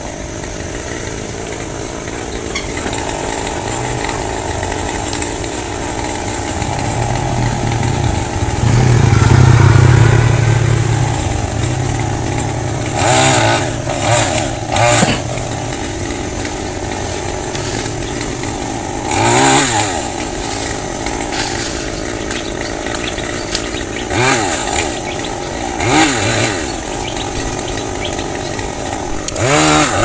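Chainsaw engine running through a cut in a tree limb, with a long loaded stretch near the start and loudest about ten seconds in. After that come short revs every few seconds, each rising and falling in pitch.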